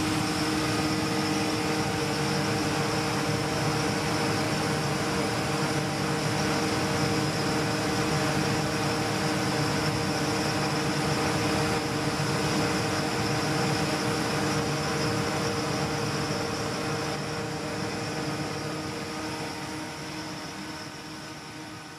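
Engine-driven Metax MP7 high-pressure pump unit running steadily under pressure: a constant mechanical hum with a high whine over it. It fades away over the last few seconds.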